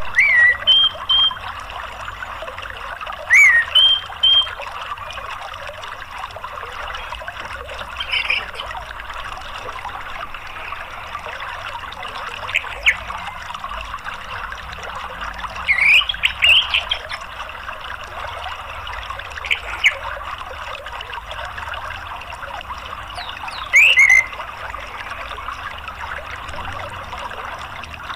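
Steady rush of running water, with short, high calls of an orange-headed thrush breaking in every few seconds. Some calls are quick rising or falling glides, and there is a clustered burst about two-thirds of the way through.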